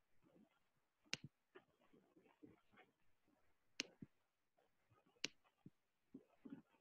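Near silence, broken by three faint sharp clicks: about a second in, near the middle and a little after five seconds.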